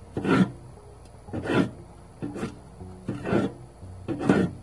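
An 8-inch Henckels santoku knife slicing through a green bell pepper onto a wooden cutting board: five crisp cuts about a second apart, each a short crunch ending in a knock of the blade on the board.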